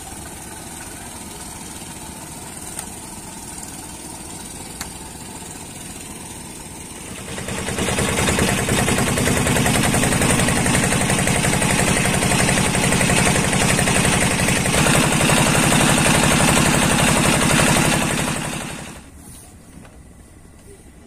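Fishing boat's engine idling, then throttled up about seven seconds in and running loud and steady for some ten seconds before easing back near the end.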